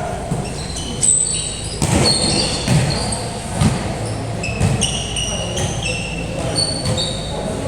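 Basketball play on an indoor court: many short, high sneaker squeaks on the floor, with the dull thumps of the ball bouncing.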